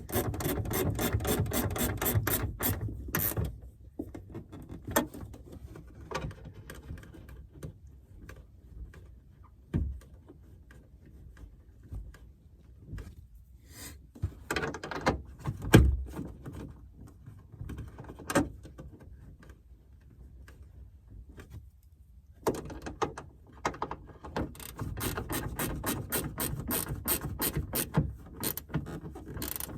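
Hand ratchet wrench clicking in quick, even runs as nuts are run down onto taillight mounting studs, twice, with scattered knocks and clunks between the runs.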